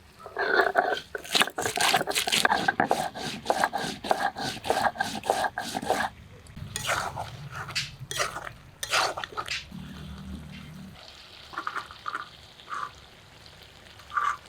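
Spices being ground with a little water on a shil-pata, the stone roller scraping and knocking back and forth on the stone slab in quick strokes. The strokes come thick and fast for the first six seconds or so, then thin out.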